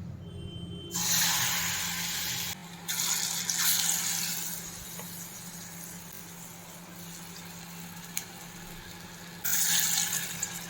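Chana dal batter dropped into hot oil sizzling: a loud hiss starts about a second in, another about three seconds in that fades off over the next few seconds, and a third near the end, over a steady low hum.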